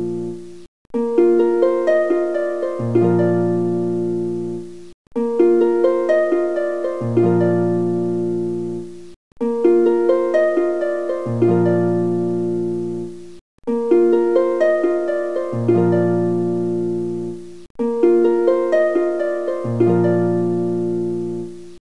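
Background music: a short harp-like plucked-string phrase over a low note, looping about every four seconds with a brief cut between repeats.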